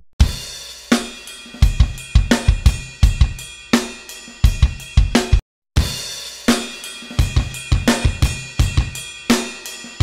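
Recorded drum-kit loop playing back dry from the DAW, without the tube preamp: kick, snare, hi-hat and cymbal hits in a steady beat. It drops out to brief silence about five and a half seconds in, then starts again.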